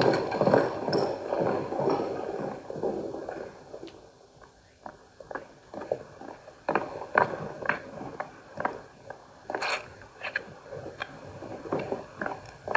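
Film soundtrack played through a television: a dense mixed noise for the first three seconds or so, fading out, then scattered short knocks and clicks at irregular spacing.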